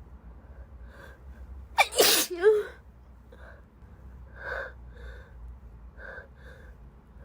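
A woman sneezes once, a loud sharp burst about two seconds in, with a rising voiced intake just before it and a short falling voiced tail after it. Several quieter short breaths follow, from a congested nose.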